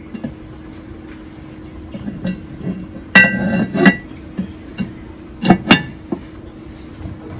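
Enameled cast-iron Staub pot and its heavy lid knocking and scraping against each other and the oven as the pot is pushed into place. There is a clattering run of knocks with a short metallic ring about three seconds in, then two sharp knocks a little later, over a steady low hum.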